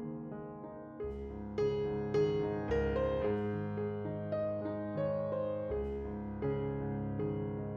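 Background music: a soft piano-led track with sustained bass notes and a gentle melody.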